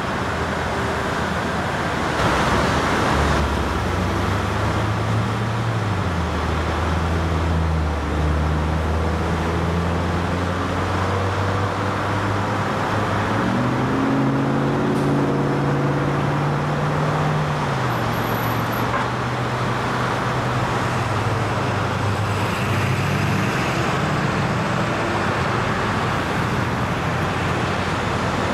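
A heavy diesel engine running under changing load, its note stepping up and down in pitch several times, over a steady rumbling noise.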